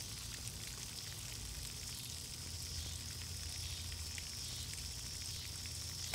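Steady hiss of running water from a garden hose supplying cooling water to an outboard motor, with a low hum underneath.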